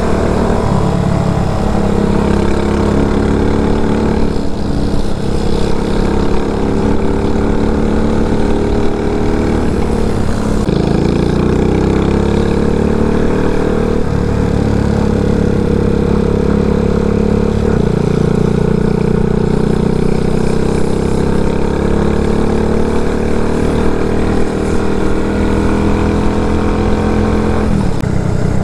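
RPS Condor motorcycle's swapped-in CG250 single-cylinder four-stroke engine running under way. The revs hold fairly steady, then fall and climb again several times through gear changes, with a rising run-up about ten seconds in and a drop near the end.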